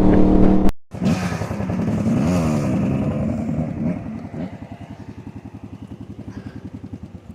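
Dirt bike engine revving up and down, then settling to an idle with an even pulsing of about eight beats a second.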